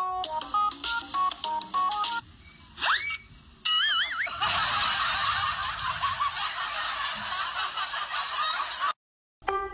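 Edited comedy soundtrack: a plinky tune of short stepped notes, then a cartoon-style whistle that rises and falls and a warbling effect about three to four seconds in, followed by several seconds of dense laughter that cuts off sharply.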